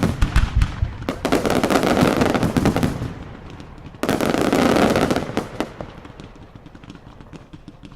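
Daylight fireworks going off in rapid volleys of bangs and crackling: one loud volley running on from the start, a second starting about four seconds in, then thinning to scattered cracks.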